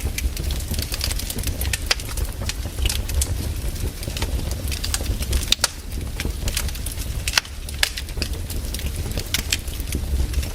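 Burning firewood crackling, with irregular sharp snaps and pops over a low steady rumble.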